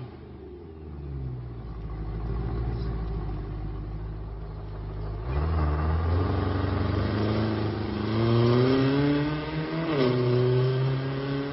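BMW E92 M3's 4.0-litre V8 through a Top Speed Pro 1 valvetronic cat-back exhaust, valves closed. It idles at first. About five seconds in the note deepens and grows louder as the car pulls away. The pitch then climbs twice as it accelerates, with a drop near the end where it shifts up.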